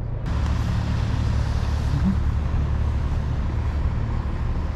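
Steady outdoor background noise: a low rumble with a hiss over it, which gets suddenly louder and brighter just after the start.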